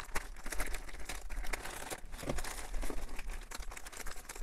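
Plastic poly mailer bag crinkling and crackling irregularly as it is cut open with scissors and a hand rummages inside it.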